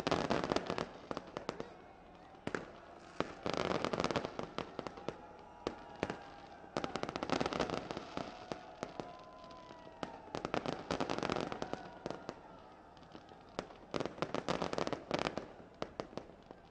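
Aerial fireworks going off in clusters of rapid crackling bangs, a group every three to four seconds with quieter gaps between.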